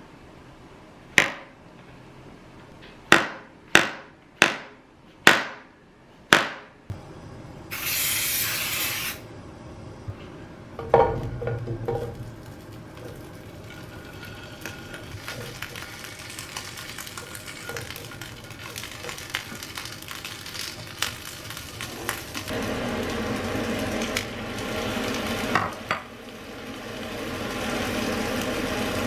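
Six sharp knocks, then a short hiss and a clatter, then asparagus and mushrooms sizzling as they fry in a pan. The sizzle gets louder about three quarters of the way through.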